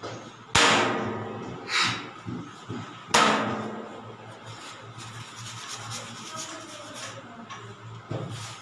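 Two loud clanks, about two and a half seconds apart, each ringing out briefly, with a softer knock between them: a fluted metal tart tin knocked down on a stainless steel worktop while pastry dough is pressed into it.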